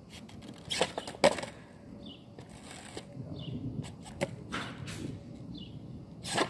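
Skateboard on an asphalt street: two sharp clacks of the deck about a second in, as on a flip-trick attempt, then the wheels rolling and a few lighter clacks near the end.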